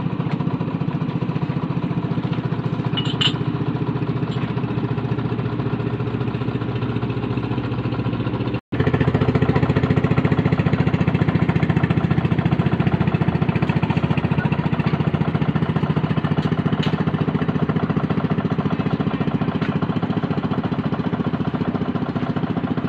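Boat engine running steadily close by, a constant drone with a strong low hum. It breaks off for an instant about a third of the way in and then runs on a little louder.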